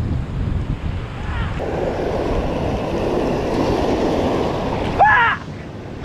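Wind buffeting the microphone over the wash of shallow water on a reef flat, with a stretch of louder rushing, splashing water. About five seconds in comes one short, loud, rising call.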